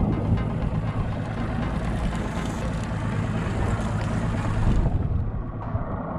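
Boat's Mercury outboard motor idling with a steady low hum, under a hiss that eases off about five seconds in.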